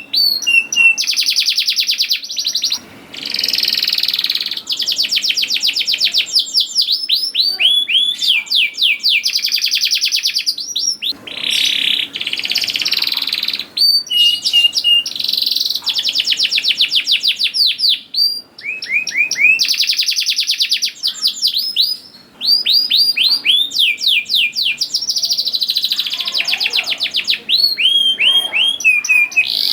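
Domestic canary singing a long, loud song of fast trills and rapid runs of repeated falling notes, phrase after phrase with only brief pauses between them.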